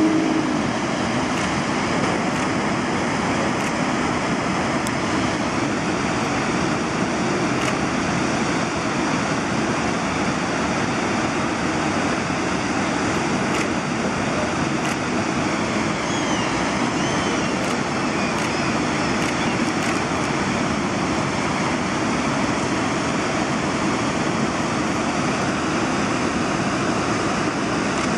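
Steady rushing of river water, an even wash of noise without breaks.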